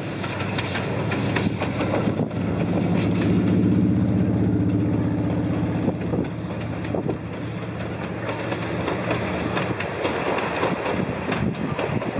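Train running past: rapid clattering of wheels on the rails over a low steady hum that swells to its loudest about four seconds in, then eases.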